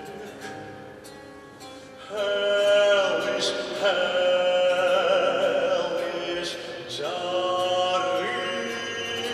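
A baritone singing held, vibrato-laden notes over harpsichord accompaniment in chamber music. The harpsichord plays alone at first, and the voice comes in loudly about two seconds in.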